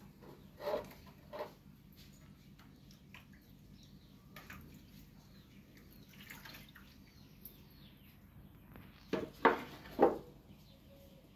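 Short knocks at irregular intervals over a quiet background, the loudest three in quick succession near the end.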